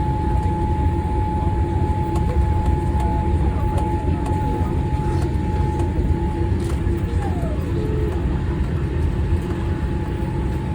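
Steady low rumble inside the cabin of a Boeing 787 rolling on the ground after landing, with a steady whine held above it.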